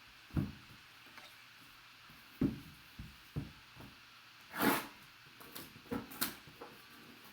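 Cardboard box being handled and opened on a table: a series of short dull knocks and thumps, with one brief rustling scrape about two-thirds of the way through.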